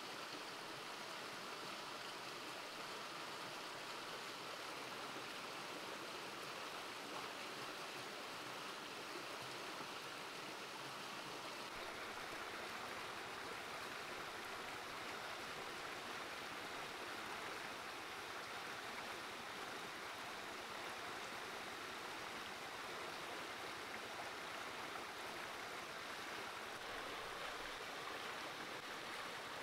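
Stream running over rocks: a steady rush of flowing water.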